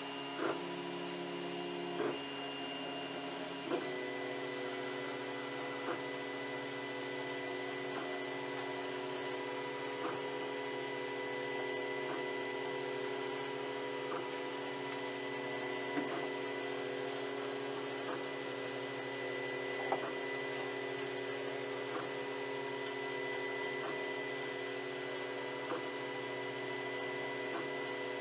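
FlashForge Creator 3D printer running a print: a steady machine whine and fan hum, with the pitch shifting about four seconds in and faint clicks about every two seconds.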